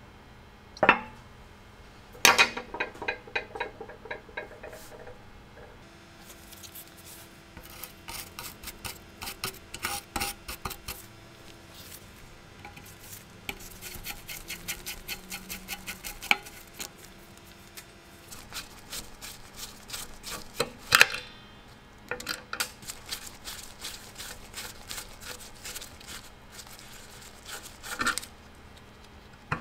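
Screwdriver turning rusty screws out of an antique Faraday electric fire bell's mechanism: runs of fast metallic clicking and scraping, with a few sharp clinks of metal parts knocking together, the loudest of them about 21 seconds in.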